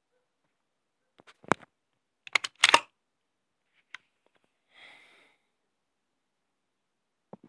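Metal parts of a WE M4A1 gas-blowback airsoft rifle being handled: a few sharp clicks about a second and a half in, a louder quick run of clacks around two and a half seconds, a single click near four seconds, and a short hiss around five seconds.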